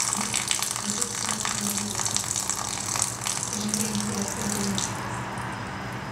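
Water running from a tap and splashing, which stops about five seconds in.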